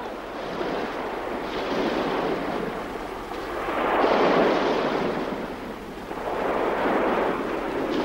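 Sea surf washing onto the beach, a steady rushing that swells to its loudest about halfway through, falls back, then rises again near the end.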